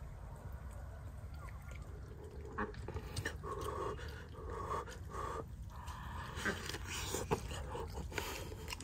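Someone eating with their hands, with wet mouth clicks and smacks, and a run of short, whiny vocal sounds starting a couple of seconds in.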